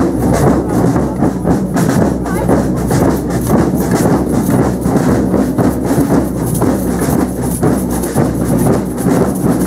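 A street drum band beating a fast, loud, continuous rhythm on marching drums.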